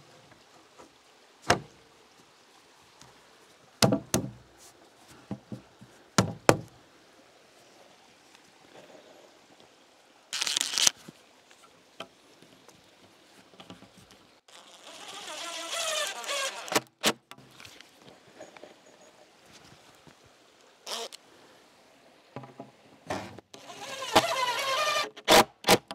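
Cordless drill driving screws into a metal joist hanger on a wooden beam: a short burst, then two runs of a couple of seconds each, about halfway through and near the end. Scattered sharp knocks of the hanger and wood being handled fall between them.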